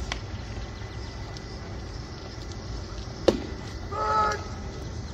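A pitched baseball smacks into the catcher's mitt with one sharp pop, and under a second later the home-plate umpire shouts a short, drawn-out strike call over a steady low background of open-air noise.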